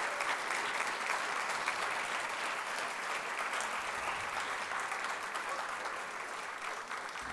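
Audience applauding, a dense patter of clapping that slowly fades.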